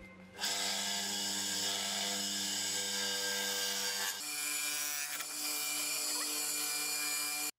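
A wire wheel on an electric motor's shaft brushing an aluminium Honda Super Cub C50 engine cover clean: a steady scratchy grinding over the motor's hum. It starts about half a second in, changes pitch slightly about four seconds in, and cuts off abruptly near the end.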